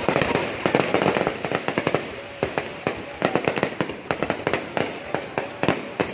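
Fireworks going off: a rapid, irregular barrage of sharp bangs and cracks, several a second.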